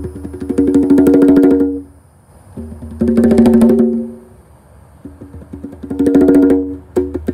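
Congas played by hand: fast rolls of rapid strokes in bursts of about a second and a half, with short pauses between them, the drumheads ringing with a clear pitched tone.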